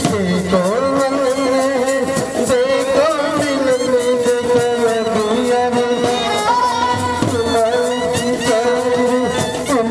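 Indian brass band playing a melody with sustained, wavering brass lines over a steady drum and cymbal beat.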